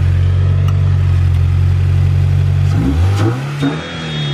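Scion FR-S 2.0-litre flat-four boxer engine running steadily just after being started, then revved once near the end, its pitch climbing and starting to fall back. A high electronic tone begins just before the end.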